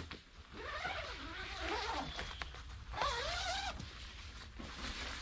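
The zipper of a Joy Tutus truck tent's door being unzipped in two pulls: a long one lasting about a second and a half, then a shorter one about three seconds in.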